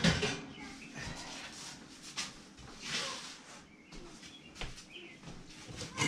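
Kitchen handling at an open oven: a short clatter at the start, then scattered light knocks and rustles.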